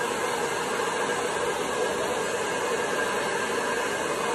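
Hair dryer running steadily, warming a thawed frozen rat so the snake takes it more readily.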